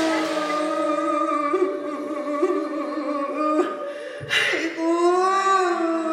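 Korean traditional ritual music: a slow melody line of long held notes that bend and slide in pitch, with a short sharp burst about four seconds in, followed by a note that swells up and falls back.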